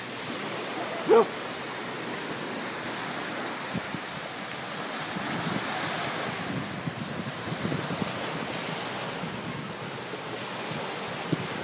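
An Airedale terrier gives one short, sharp bark about a second in, over the steady wash of small waves breaking on a lake shore and wind buffeting the microphone.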